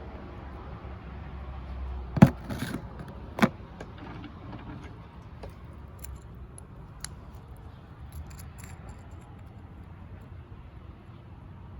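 Cut rock slabs clacking and clinking as they are handled and set down: two sharp knocks a little over a second apart, followed by a few light clicks.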